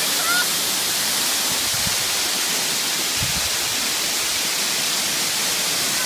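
Waterfall: a steady rush of water falling over rock into a pool.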